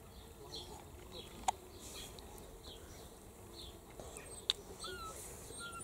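A bird calling over and over in the background, a short falling chirp roughly every two-thirds of a second, with two sharp clicks about three seconds apart.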